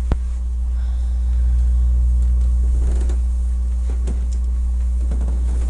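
A loud, steady low hum, with a sharp click right at the start and a few soft rustles of bedding and pillows as a person settles onto a bed.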